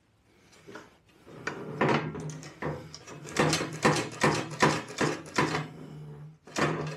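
Snowblower discharge chute and deflector being swung and tilted by hand: a run of quick knocks and scrapes from the chute's swivel and the deflector hinge, which the owner puts down to paint sticking in the hinge.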